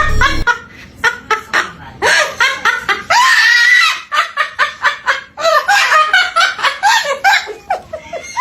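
A bird giving a long run of rapid, laughter-like calls, pitched well above a human voice, with a longer, denser burst about three seconds in. Music stops about half a second in.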